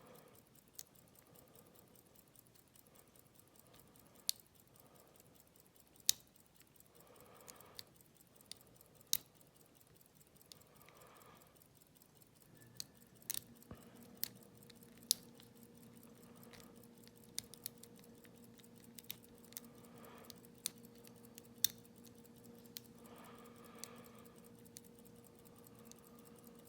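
Small, sharp, irregular clicks of a lock pick and tension wrench working the pin stack of an Abus 72/40 padlock, while the picker is failing to get the lock into a false set. A faint steady low hum starts about halfway through.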